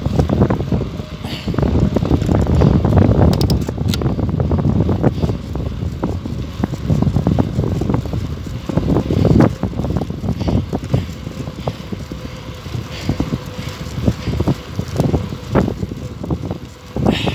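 Wind rumbling on the microphone of a camera carried on a moving bicycle, with frequent small clicks and rattles from the ride over asphalt.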